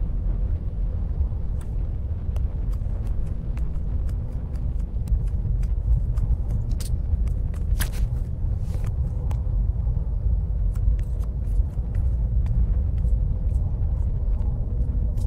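A low, steady rumble with a faint steady tone over it and scattered soft clicks, the strongest about eight seconds in.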